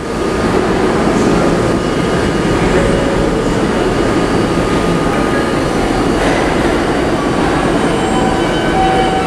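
New York City subway train running, a steady loud rumble of wheels on rail with faint high-pitched whines over it.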